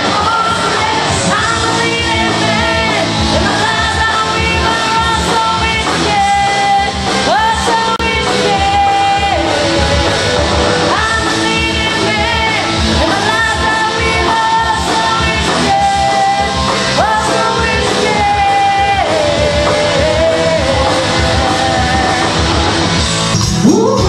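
A woman singing a song into a microphone over a karaoke backing track with a steady beat, holding long notes and sliding between pitches.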